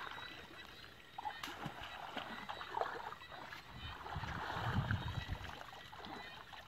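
Shallow muddy water sloshing and splashing as people wade through it and drag and scoop woven baskets through it, swelling louder with a deeper rumble around four to five seconds in.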